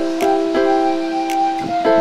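Background music: held chords that change every second or so, with a few light ticks of percussion.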